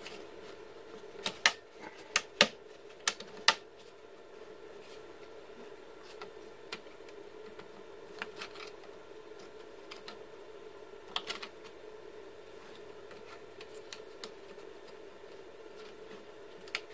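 Plastic cable drag chain link covers being pried open and snapped by hand. A quick run of about six sharp clicks comes in the first few seconds, then scattered lighter clicks, over a steady hum.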